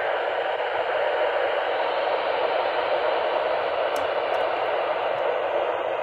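Midland weather alert radio giving a steady static hiss while tuned to a NOAA Weather Radio station.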